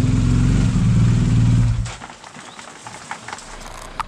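BMW R1250 GS Adventure's boxer-twin engine running at low revs as the bike rolls to a stop, then switched off about two seconds in. A few faint clicks follow.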